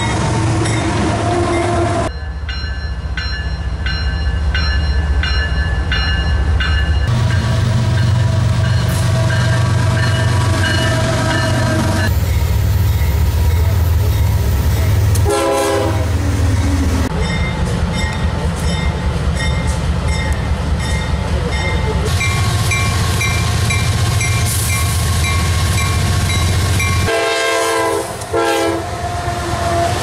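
CSX diesel freight locomotives passing close by: engines running loud, horns sounding, and railcar wheels clattering over the rails. The sound changes abruptly every few seconds as one train clip cuts to another.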